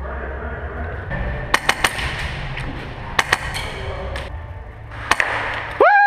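Airsoft guns firing on a close-quarters field: about eight sharp cracks, singly and in quick pairs, over a low hum of background noise. Near the end a loud falling tone cuts in abruptly.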